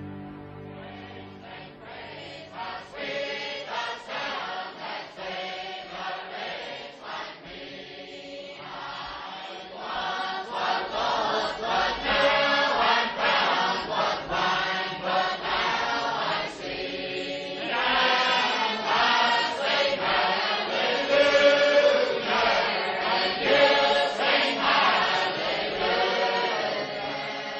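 A choir singing a slow, chant-like piece, growing louder about ten seconds in and again a little later, fading out at the end.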